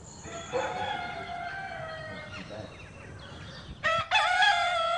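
Rooster crowing twice: one long crow starting about half a second in, then a second, louder crow near the end.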